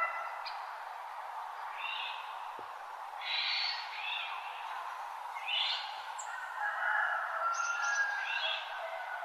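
Several songbirds singing in a forest dawn chorus: short phrases every second or two, with some longer whistled notes, over a steady rushing background.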